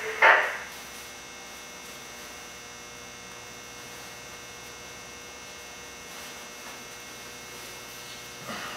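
Steady electrical mains hum, with a short loud noise just after the start.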